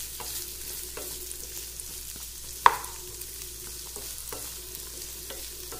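Chopped onions sizzling in hot oil in a frying pan as they are sautéed, stirred with a wooden spatula that scrapes and taps the pan. One sharp knock comes about halfway through.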